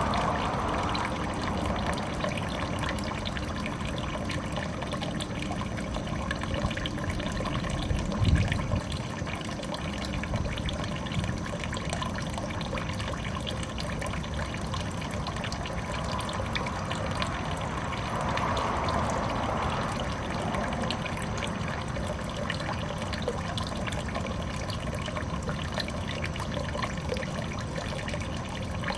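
Water falling and trickling steadily in a biotope pond. About eight seconds in there is one brief low thump.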